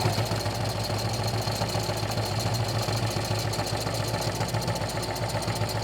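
Electric sewing machine running at a steady speed, its needle punching through heavy curtain fabric in rapid, even strokes.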